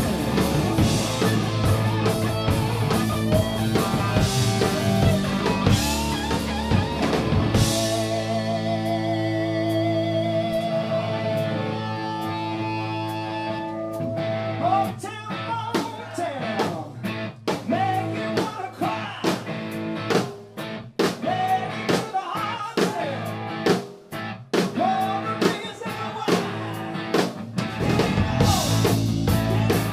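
Live rock band with electric guitar, bass and drums, with singing. About eight seconds in the band drops back to a sparser stretch of long held notes and scattered drum hits, and it comes back in full near the end.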